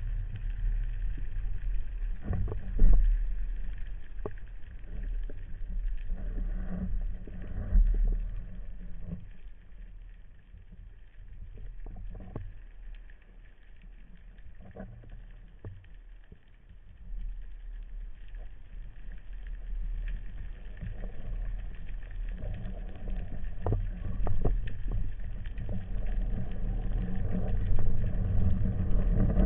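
Muffled underwater noise picked up by a camera in its waterproof housing: a low rumble with scattered knocks and clicks, quieter for a few seconds in the middle.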